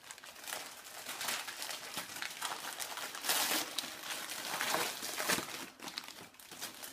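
Gift wrapping paper and crinkly snack bags rustling and crumpling as wrapped presents are handled and unwrapped. The rustling is irregular, with a louder stretch about three seconds in.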